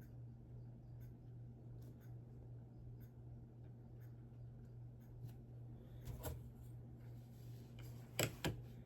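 Lego bricks being handled and pressed together: faint rustling and small plastic clicks, with a sharper click about six seconds in and two louder clicks in quick succession near the end. A steady low electrical hum underneath.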